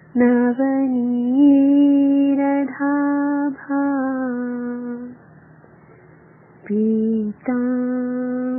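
A woman's solo voice chanting a Sanskrit devotional verse in a slow melody, on long held notes. She sings two phrases with a pause of about a second and a half between them.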